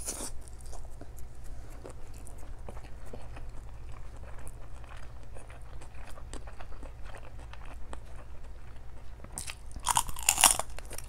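A person chewing and biting mouthfuls of rice and fish, with many small mouth clicks, and a louder, brief noisy burst about ten seconds in.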